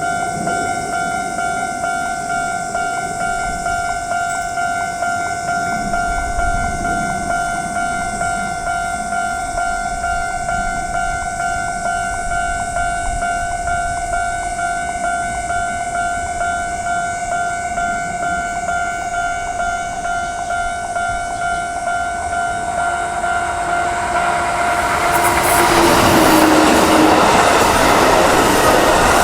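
Japanese level-crossing warning bell ringing steadily with a rapid, repeating electronic ding. About 25 seconds in a train arrives and runs through the crossing, its wheels loud on the rails, while the bell keeps ringing.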